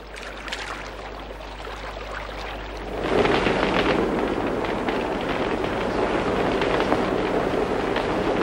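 Forest-fire sound effect: flames crackling with many small pops, faint at first, then jumping much louder about three seconds in and staying loud.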